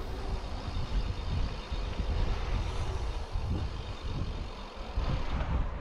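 Wind buffeting the microphone: a low, uneven rumble with a hiss above it.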